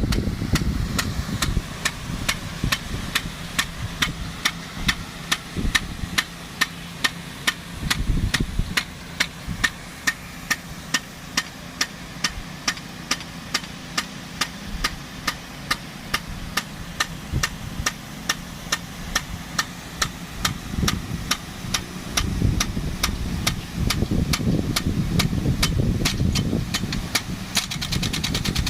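DN-50 big gun sprinkler ticking steadily, its impact arm striking about two to three times a second as it turns, over the steady running of the engine-driven water pump feeding it.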